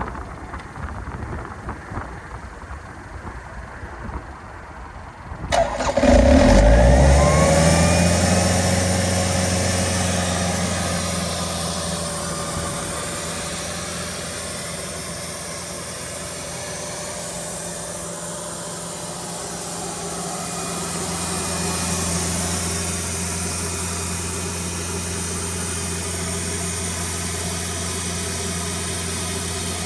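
The Yanmar 4NTV88 four-cylinder diesel of a Doosan 7/41-N mobile compressor starts about five seconds in, loudest as it catches, then settles into steady running. The level rises slightly about twenty seconds in.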